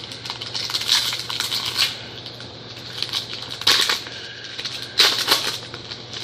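Trading cards and card-pack packaging being handled: papery rustling and crinkling in several short bursts, the loudest around one to two seconds in, near four seconds and about five seconds in.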